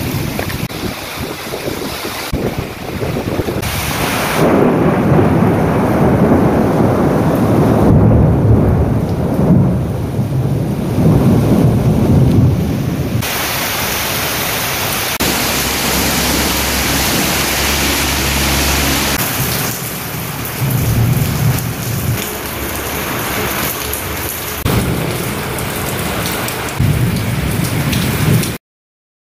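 Thunderstorm: steady rain with thunder rumbling in several long, low rolls. The sound cuts off abruptly near the end.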